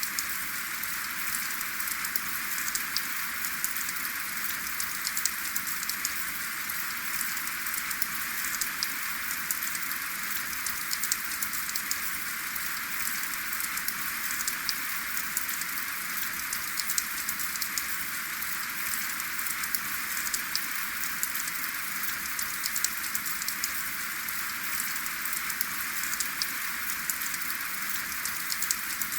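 Steady rain falling without pause, a continuous hiss dotted with many small, sharp drop ticks.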